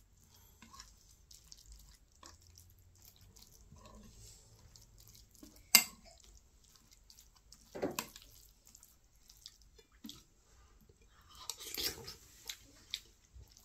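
Metal spoon clinking and scraping against a ceramic bowl of thick curry in short, scattered taps, the sharpest about six seconds in; soft eating sounds near the end.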